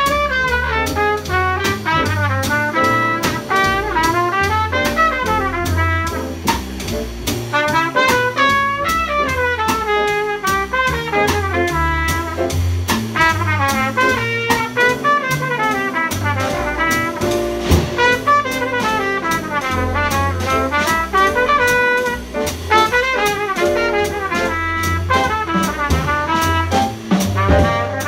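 Jazz band playing live: a fast, winding melodic line that runs up and down over bass and a drum kit with cymbals.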